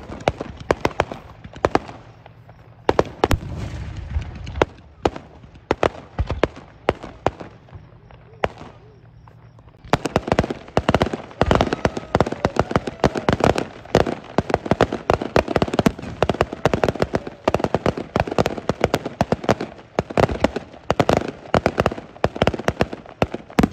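Aerial fireworks going off, with scattered bangs and pops for about the first ten seconds. Then comes a dense run of rapid crackling and bangs.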